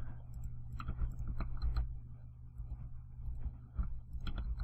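Scattered clicks of a computer mouse and keyboard, a quick run of them in the first two seconds and a few more near the end, over a steady low hum.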